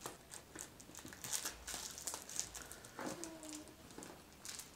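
Crinkling and rustling of packaging with scattered small clicks and scrapes as a Samsung Galaxy Note10+ retail box is unwrapped and opened by hand.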